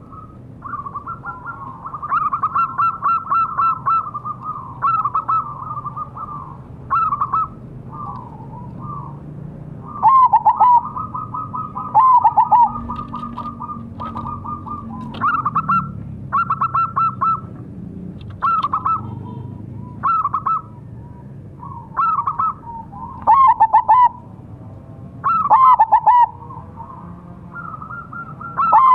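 Zebra dove (perkutut) of the mega mendung colour type singing: many loud phrases of quick stuttering coos, one every second or two, with fainter cooing between them.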